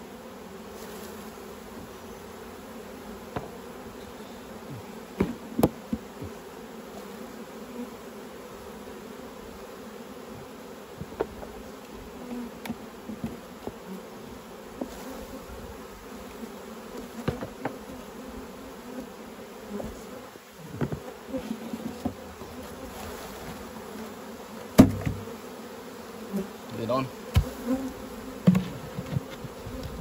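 Steady hum of many honeybees buzzing around an opened hive as bees are shaken off the frames. Scattered wooden knocks and clunks come from the frames and the hive lid being handled, the loudest about three quarters of the way through.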